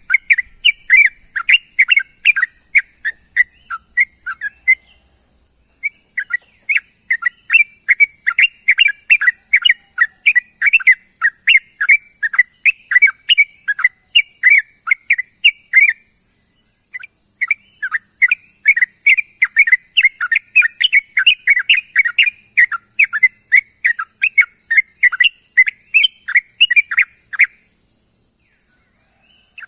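Yellow-vented bulbul (trucuk) calling in long runs of rapid, chattering notes, broken by three short pauses, over a steady high hiss.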